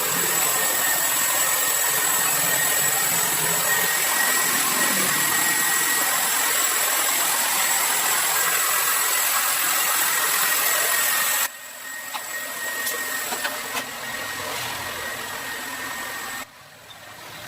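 Car engine running steadily with a thin high whine over a hissy drone; the sound drops abruptly in level about eleven seconds in and again near the end.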